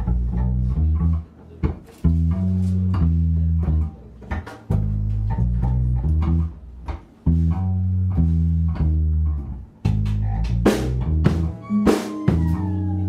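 Band music: a plucked bass line in short repeated phrases with guitar. The drums come in with sharp cymbal and drum hits about ten seconds in.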